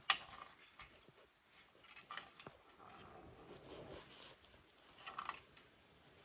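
Faint handling noises of wires and plastic connectors: a sharp click at the start, then short rustling, scraping sounds about two seconds and five seconds in.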